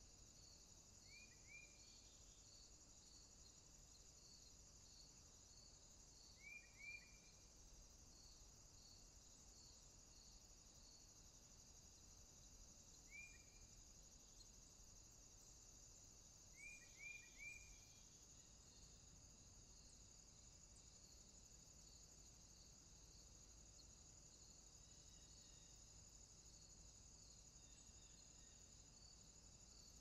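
Quiet pond-side insect chorus: crickets trilling steadily, with a slower, regularly repeating chirp under the trill. Four times, a bird gives a short group of two or three quick falling calls.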